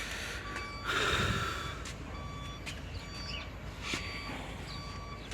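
A faint, steady high electronic tone that comes and goes, with handling clicks and a short rustling rush about a second in.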